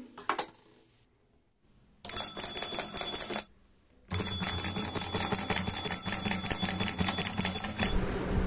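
Small brass pooja bell rung rapidly by a striker driven by a 5 V DC motor, in two runs: about a second and a half starting two seconds in, then about four seconds starting about four seconds in, each cutting off suddenly. A low motor hum runs under the second run.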